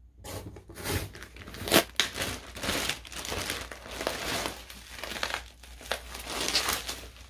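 Clear plastic packing wrap crinkling and rustling as it is pulled open and unwrapped from bottles by hand, with the rustle of a cardboard parcel box being opened.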